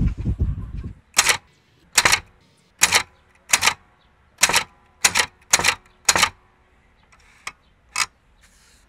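Royal portable manual typewriter: a short rattle from the machine dies away, then eight sharp key strikes at an even pace type out a word letter by letter, followed by two fainter clicks near the end.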